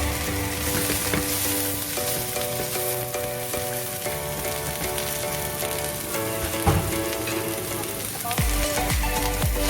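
Food sizzling steadily as it fries in a pan, stirred now and then with scrapes and knocks of the utensil on the pan.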